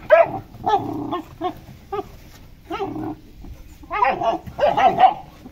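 Fila Brasileiro puppies yelping and whining as they jostle and play together: about a dozen short pitched calls, loudest in a cluster near the end.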